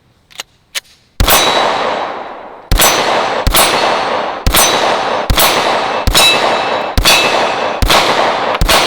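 Glock 17 Gen 2 9mm pistol fired about nine times at a steady pace of roughly one shot a second, each shot followed by the ringing of struck steel targets. Two light clicks come just before the first shot.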